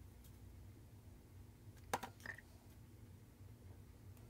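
Near silence, broken by one light click about two seconds in as small hobby hand tools are handled against a plastic HO scale locomotive frame.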